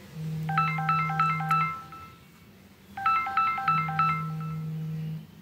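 A mobile phone ringing: a short electronic ringtone phrase of quick stepped beeps, repeated about every two and a half seconds, with a low steady buzz during each ring.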